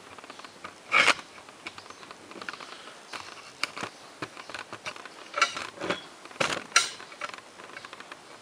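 Irregular metallic clanks and knocks of metal parts and tools being handled at a lathe, with no motor running. The louder knocks come about a second in and again between about five and seven seconds in.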